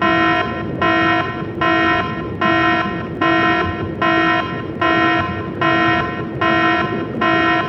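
Japanese railroad crossing warning bell ringing in an even, repeating pattern, about ten rings at a bit over one per second, each a bright tone lasting about half a second. A steady low rumble runs underneath.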